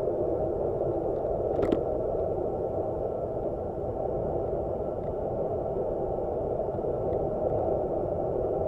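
Steady rushing wind and road noise on a handlebar-mounted action camera's microphone as a road bike descends at about 26–28 mph, with a single sharp click a little under two seconds in.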